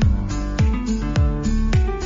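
Background music: a plucked guitar over a steady kick-drum beat, about two beats a second.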